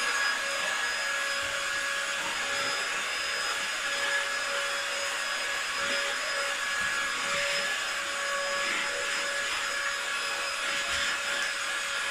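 Eufy HomeVac H11 cordless handheld vacuum running steadily: an even motor whine over a rush of air.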